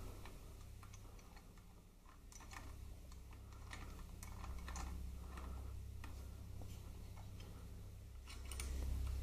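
Faint, scattered small metallic clicks and taps as the pinch bolt of a Harley-Davidson gear shift lever is threaded in by hand, over a low steady hum.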